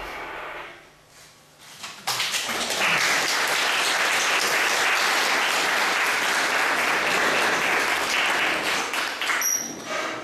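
Applause from a roomful of people, starting about two seconds in and running steadily for about seven seconds before it fades.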